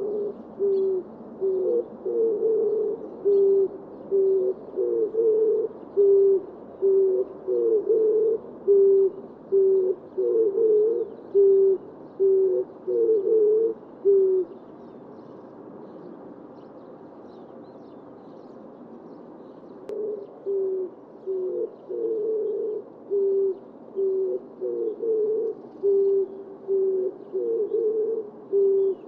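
Oriental turtle dove cooing: a rhythmic series of low coos, short steady notes alternating with longer wavering ones. The series stops about halfway through, and after a pause of a few seconds another series begins.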